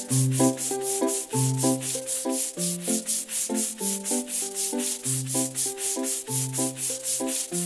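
Cartoon paintbrush sound effect: rhythmic brush-stroke scrubbing, about four to five strokes a second, over a children's music track with a bass line and melody.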